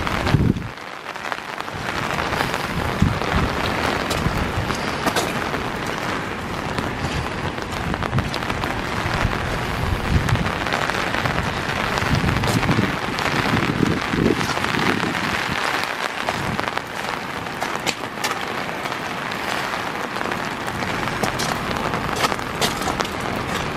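Steady hiss of falling and rushing water, with occasional low rumbles and a few light ticks.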